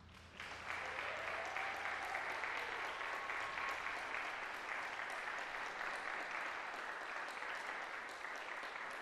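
Concert audience applauding, breaking out about half a second in as the low ring of the final drum stroke dies away. A short rising whistle from the audience cuts through the clapping.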